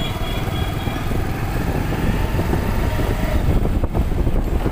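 Motorcycle running steadily as it is ridden along a street, heard from the rider's seat as a constant low rumble.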